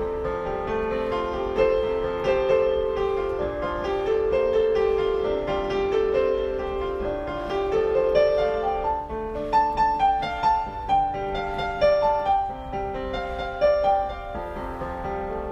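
Piano music: a slow melody over sustained chords, with the melody moving higher and the notes struck more sharply in the second half.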